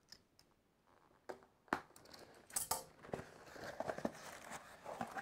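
Cardboard box being opened by hand: a few sharp clicks and taps as the end flap is worked loose with a thin metal tool, then rustling and scraping of cardboard as the flap is pulled open.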